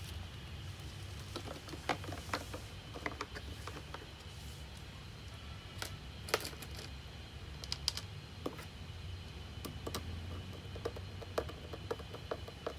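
Irregular light clicks and taps of hard plastic parts and tools being handled during assembly of a battery-powered ride-on toy car, over a steady low hum.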